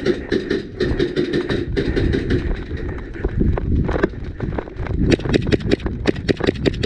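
Quick footsteps with gear rattling and clattering as a player moves in, an uneven run of sharp clicks and knocks over a low rumble of movement. The clicks come thicker near the end.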